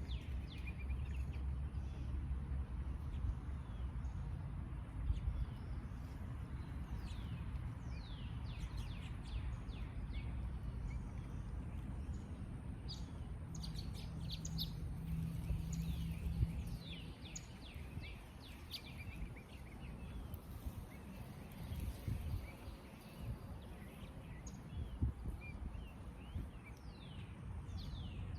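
Songbirds chirping in a backyard, many short calls that sweep downward in pitch, repeated throughout. Underneath is a steady low background rumble that eases a little past the middle.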